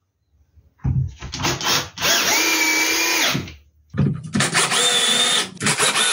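Electric drill-driver driving screws into pine pallet wood: a few short trigger pulses, then the motor spins up and runs with a steady whine for about a second and a half, stops, and starts again about four seconds in for another long run.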